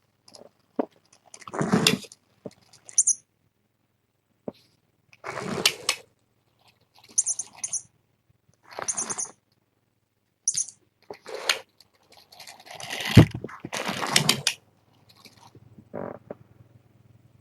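A noise-making toy giving short bird-like chirps in separate bursts, a dozen or so, alongside rustling. About thirteen seconds in comes a louder thump.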